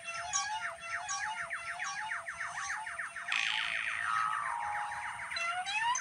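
Electronic noise instrument making dense, fast-repeating sweeping tones that warble up and down, with a short hissy burst a little past three seconds in that dissolves into falling stepped tones.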